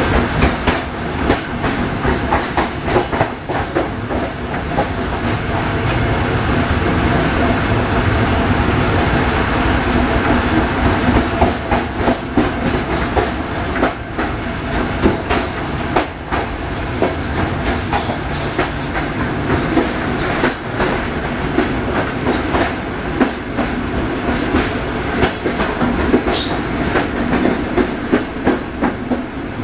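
Sulzer-engined Electroputere LDE 2100 diesel-electric locomotive running while hauling a passenger train, heard at the coupling to the first coach: a steady engine note under the rumble of the running gear, with wheels clattering over rail joints and frequent knocks. A few brief high squeals come past the middle and again near the end.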